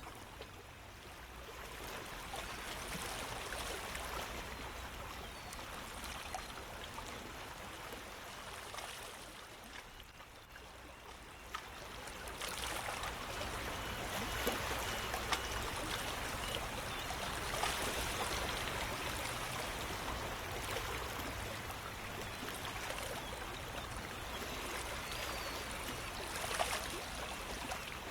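Running water, like a stream trickling and gurgling, steady with its level dipping and then swelling about twelve seconds in.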